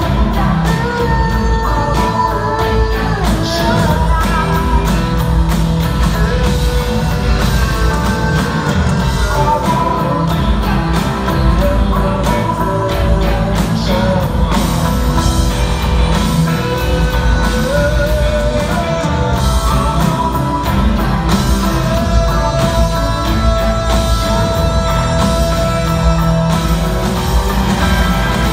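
Live rock band playing over a concert PA, heard from the audience: electric guitars and drums with a sung vocal line, loud and unbroken.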